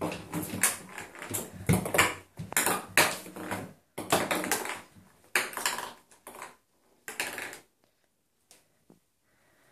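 Ping pong ball bouncing and rattling around an empty bathtub as a cat bats it: a quick, dense run of sharp taps that thins out after about four seconds and dies away near the end.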